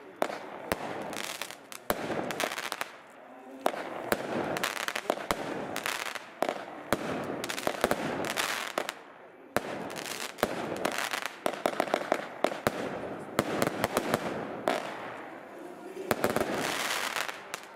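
Aerial fireworks going off: a rapid run of sharp bangs and crackles with stretches of hissing between them, broken by a few short lulls.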